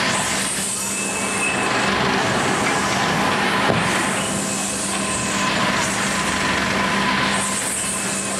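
Technical Park Apollo 2000 Egg Dance ride running: a steady machine hum, with a high swish that swells and fades about every three and a half seconds.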